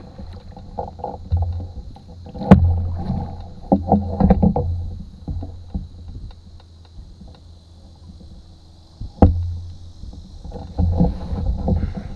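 Canoe paddle strokes: a wooden paddle dipping and pulling through the water with swishing splashes in clusters, and two sharp knocks, about 2.5 s and 9 s in, of the paddle striking the canoe's hull.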